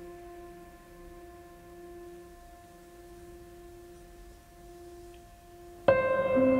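Background music: soft held keyboard-like tones, with a louder new chord entering suddenly near the end.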